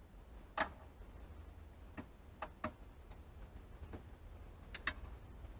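A small screwdriver prying at a plastic connector tab and the old shift lever being worked loose: scattered sharp plastic clicks and taps, about half a dozen, with a faint low hum underneath.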